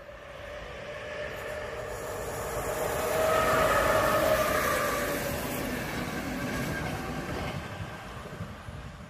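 Czech Railways class 362 dual-system electric locomotive and its passenger coaches passing at speed: a rushing rumble of wheels on rails that builds, is loudest about four seconds in, then fades as the train goes away, with a faint steady whine.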